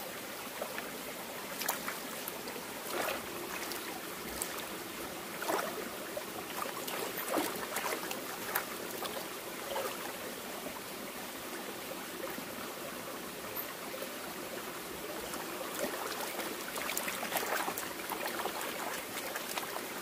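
Shallow mountain stream running over rocks, with intermittent splashes as hands swish bunches of wild chives in the water to rinse them.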